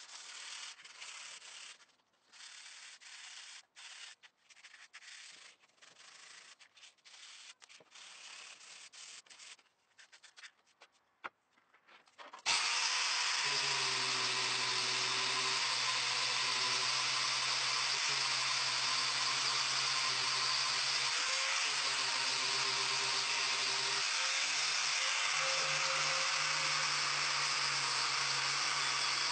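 Short, irregular scraping and sanding strokes on wood. About twelve seconds in, an angle grinder switches on abruptly and runs steadily with a loud hiss over a low hum that shifts slightly.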